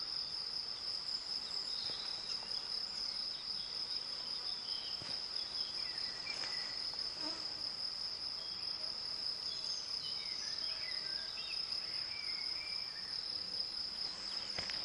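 Crickets singing: a continuous, steady high-pitched trill without a break, with faint short bird chirps scattered through it.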